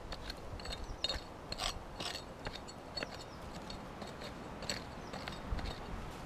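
Prospecting pick scraping and chipping into dry, stony soil: a run of short gritty scrapes and clicks, about two a second, as a metal-detector target is dug out.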